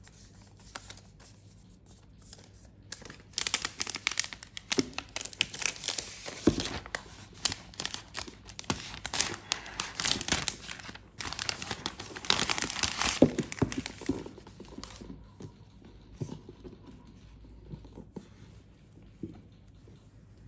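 Thin translucent protective wrap sheet crinkling and rustling as it is peeled off a new laptop, in two long spells with a short break between them. It then gives way to lighter handling rustles and taps.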